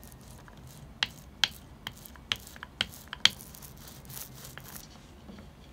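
A small glue roller worked back and forth over a strip of olive wood to spread wood glue: a run of sharp clicks and taps, about eight in two seconds, then a brief rustling hiss.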